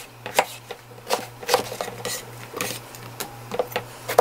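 Kitchen knife slicing through eggplant on a cutting board. Each time the blade meets the board it knocks, irregularly, about twice a second.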